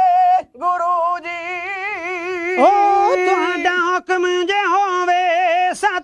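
Male voices singing Punjabi kavishri, drawing out long held notes with a wide, wavering vibrato. About two and a half seconds in, a second voice slides up into the note and the two sing together.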